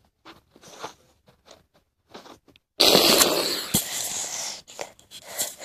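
Faint scattered taps of small plastic toys being handled on a carpet. About three seconds in, a sudden loud rubbing rustle as the recording device is grabbed and handled right against its microphone, fading over the next two seconds.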